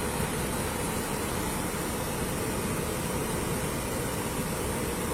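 Steady background rumble and hiss from vehicle noise at the roadside, even throughout, with no distinct events.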